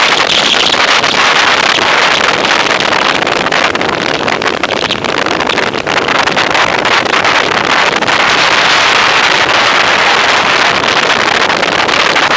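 Wind rushing over the microphone of a bicycle-mounted camera while riding at speed: a loud, steady rushing noise.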